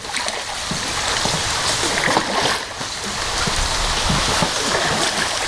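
Steady rushing of water around a boat moving on the river.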